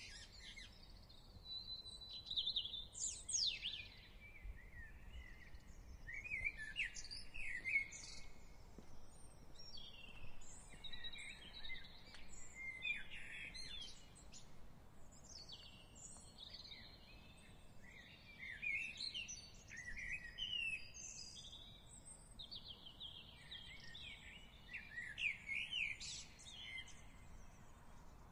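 Several songbirds singing and chirping, with overlapping varied phrases, over a faint low background rumble.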